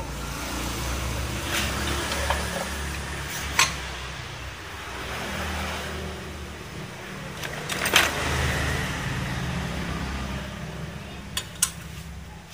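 Automatic scooter engine and CVT running, swelling and easing a few times as the throttle is opened and closed, with a few sharp metallic clicks.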